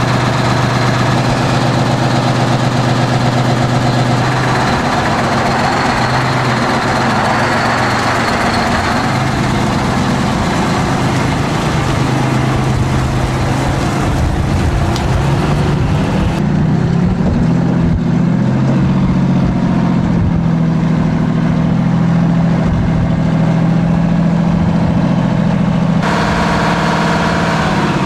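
Kenworth's 14-litre V12 Detroit two-stroke diesel running steadily under load, its engine note stepping up partway through.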